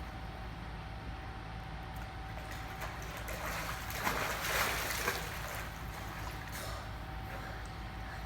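Water trickling and sloshing in a swimming pool, over a steady low hum. A louder rush of splashing comes about four seconds in.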